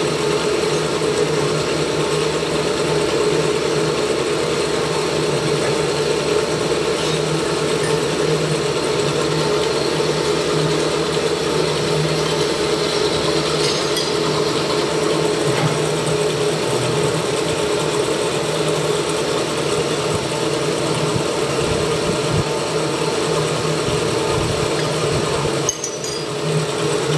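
Horizontal milling machine running: a steady mechanical drone from its motor and gear drive, with a brief drop in level near the end.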